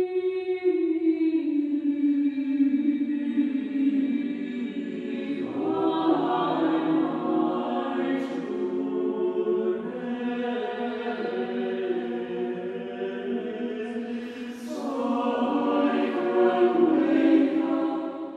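Mixed chamber choir singing a slow, sustained passage. It opens on long held notes, grows into fuller harmony about five seconds in, and swells louder near the end before dying away.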